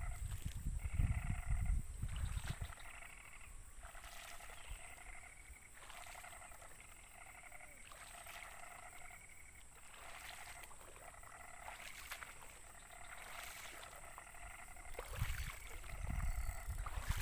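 Swamp frogs calling in repeated pitched bursts about a second long, over a steady high insect buzz. A low rumble sounds at the start and again near the end.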